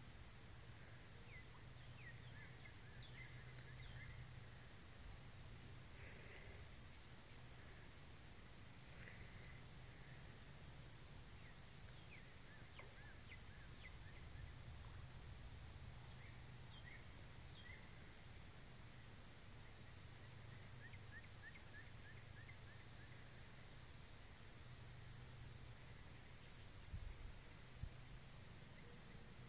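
Quiet outdoor pond-side ambience: a high, even pulsing repeats about three times a second throughout, with scattered faint bird chirps and a low hum underneath.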